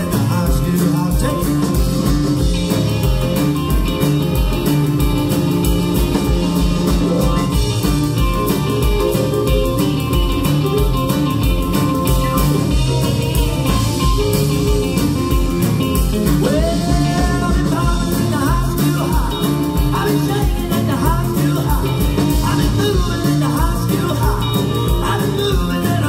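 Rock and roll band playing live: piano, electric guitars and drums over a steady driving beat. About two-thirds of the way through, a lead line with sliding notes comes in on top.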